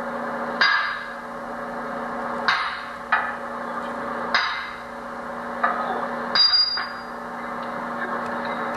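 Hammer striking metal, about six uneven blows during heavy-truck brake work, the last one ringing briefly in a high tone, over a steady machine hum.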